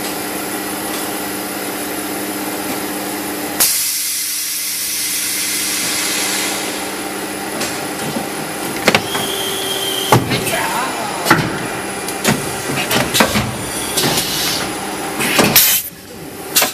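Blow molding machine running with a steady hum. About three and a half seconds in, a sudden hiss of compressed air starts and lasts a few seconds. It is followed by a run of uneven metallic clanks and knocks as the machine's pneumatic parts and trimming punch work.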